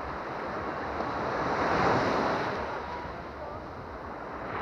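Baltic Sea surf: small waves breaking and washing up a sandy beach, the rush of water swelling to its loudest about two seconds in and then ebbing.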